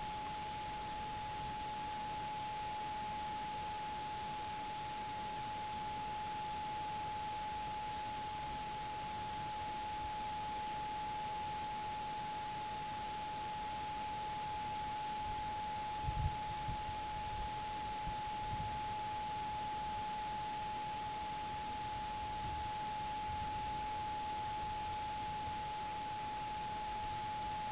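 A steady, unchanging pure tone over an even hiss: electronic noise from the trail camera's own recorder. A few faint low thumps come about halfway through.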